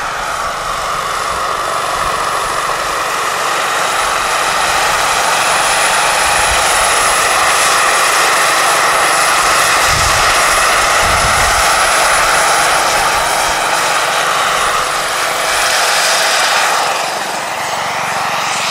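Turbine-powered large-scale RC Jet Ranger model helicopter flying a low pass: a steady turbine whine over the main and tail rotor noise, growing louder as it comes near. Its pitch drops near the end as it passes by.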